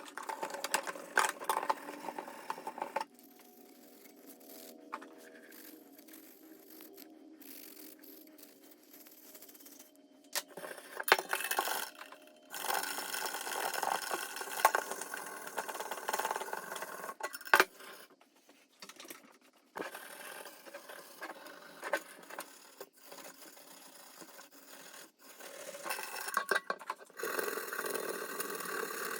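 Copper mesh pad scrubbing the chrome-plated surface of a copper kettle: a scratchy scraping in bouts, with a long quieter pause about three seconds in and another short lull past the middle.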